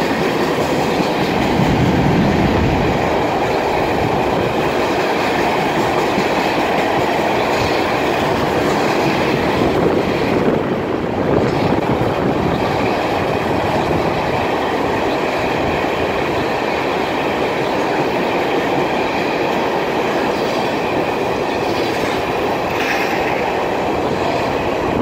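Florida East Coast Railway freight train's tank cars rolling past, a loud, steady noise of steel wheels on the rails.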